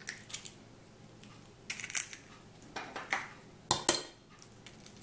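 Eggs being cracked by hand into an enamel bowl of grated pumpkin: a few short, sharp clicks and taps of eggshell, the loudest pair about four seconds in.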